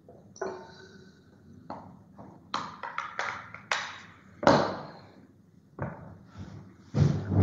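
Light taps and knocks of a phone and other small objects being handled on a desk, several sharp ones in quick succession about halfway through.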